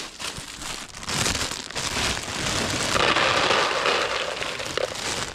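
Close rustling and crunching handling noise, loudest about three to four and a half seconds in.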